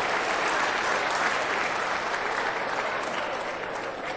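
Theatre audience applauding, the clapping gradually dying down near the end.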